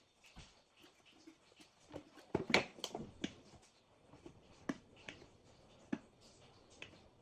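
Light clicks and knocks of the hard plastic star lamp shell being handled and its front cover fitted onto the base. There is a quick cluster of clicks about two and a half to three seconds in, then a few single clicks.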